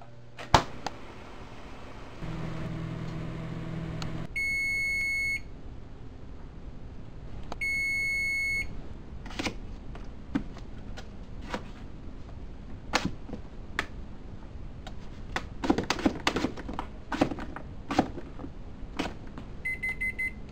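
A fridge door shuts with a thump, a kitchen appliance hums for about two seconds, then gives two one-second electronic beeps. After that a chef's knife chops a potato on a plastic cutting board in irregular knocks that come faster near the end, where a few short beeps sound.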